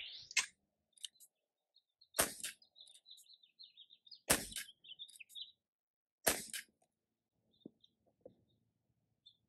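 Bug-A-Salt Shred-ER gun firing reloaded cartridges at targets: three sharp pops about two seconds apart, each followed by a quieter click. Birds chirp between the shots.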